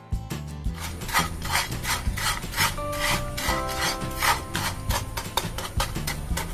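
A spatula scraping and stirring crumbled date-palm jaggery (khejurer gur) around a hot frying pan to melt it, in repeated strokes about two a second starting about a second in.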